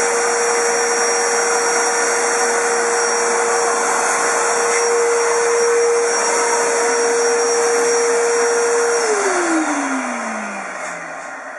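A small high-speed electric motor running steadily with a rushing noise and a constant whine. It is switched off about nine seconds in, and the whine falls in pitch as it winds down over about two seconds.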